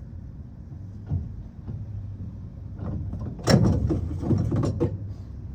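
A quick cluster of knocks and rattles from handling the spare tire hoist hardware under a pickup truck, starting about three and a half seconds in and lasting a little over a second, over a steady low hum.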